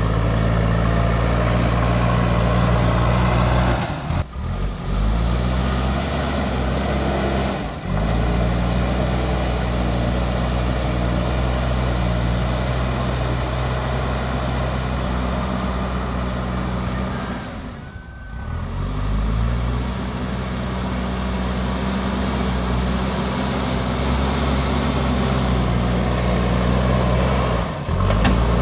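Diesel engine of a JCB backhoe loader running steadily under work. A few times the sound dips briefly and the engine note climbs back up.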